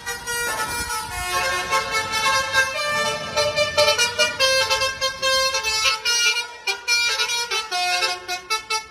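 Indonesian tour bus's basuri musical air horn playing a quick tune of held notes that step up and down in pitch, with a low engine rumble under it for the first few seconds.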